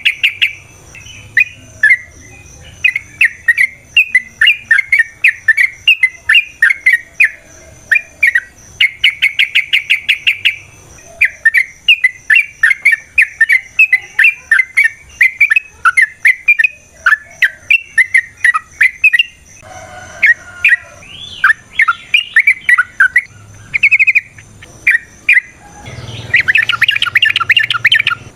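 Yellow-vented bulbul (trucukan) singing long, loud runs of quick chirping notes, with several bursts of very fast trilling: the rapid-fire "ropel" song.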